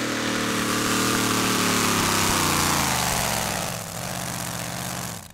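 Supercharged engine of a two-wheel-drive pulling truck running flat out against the weight sled, its pitch falling steadily as it loses revs under the load. Nearly four seconds in it drops to a quieter, lower note as the pull stops short of a full pull.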